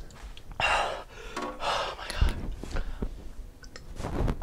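A man gasping and breathing hard through his mouth from the burn of an extremely spicy chip: three or four heavy breaths, the strongest about a second in.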